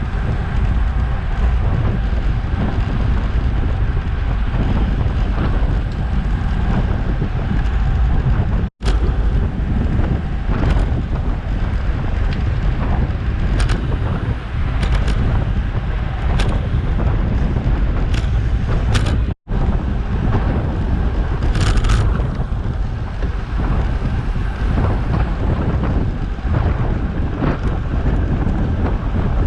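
Heavy wind buffeting an action camera's microphone while riding a bicycle at speed, a steady low rumble and hiss. It cuts out briefly twice.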